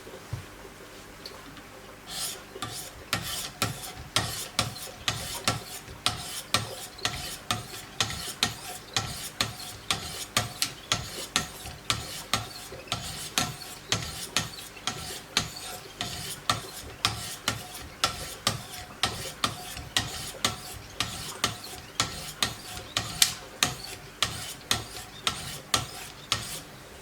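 Knife blade being sharpened on a Wicked Edge guided sharpener: the abrasive stones rasp along the steel in quick, even strokes, about two a second, starting about two seconds in.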